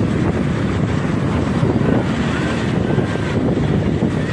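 A vehicle engine and road noise running steadily, with wind buffeting the microphone.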